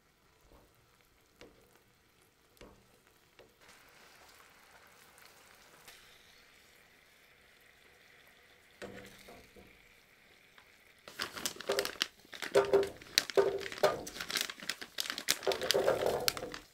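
Fish fillets frying in oil in a pan: a faint sizzle for the first ten seconds or so, then, about eleven seconds in, a loud crackling sizzle full of pops and spatters.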